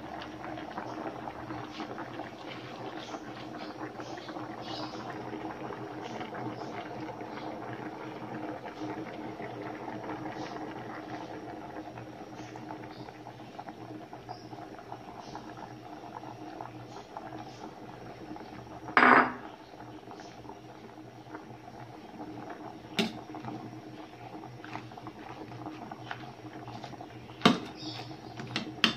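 Stainless-steel pot of fish and pechay in coconut milk simmering on the stove: a steady hum with small pops and crackles. A utensil clanks against the metal pot a few times, loudest about two-thirds of the way through, with two sharper knocks near the end.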